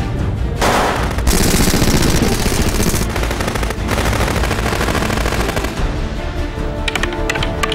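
A burst of rapid gunfire lasting about two seconds, starting just under a second in, over a music track.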